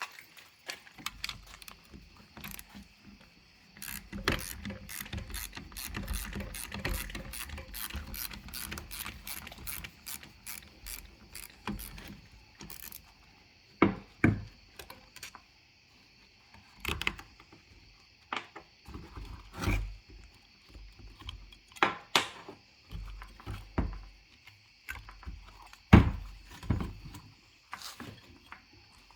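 Hand tools clicking and knocking on metal while working at a fuel pump fitting that is stuck fast: a quick run of clicks for several seconds, then scattered single knocks.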